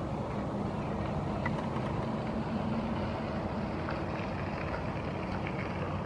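Steady low background rumble, like distant traffic, with a faint short high chirp about one and a half seconds in.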